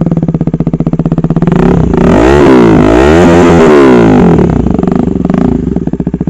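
Loud single-cylinder engine of a KTM Duke 250 motorcycle with an SC Project aftermarket exhaust, idling with a pulsing beat, revved up a little after a second in, then settling back to idle near the end.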